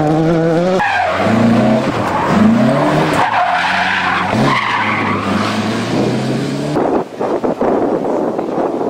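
Rally car engines revving hard, pitch rising and falling through gear changes as the cars slide through corners on loose dirt. About seven seconds in the sound cuts abruptly to a rougher, noisier engine and tyre sound.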